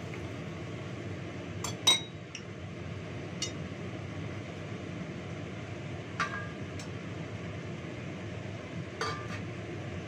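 Kitchen range hood extractor fan running steadily, with dishes and utensils clinking four times over it, the loudest about two seconds in.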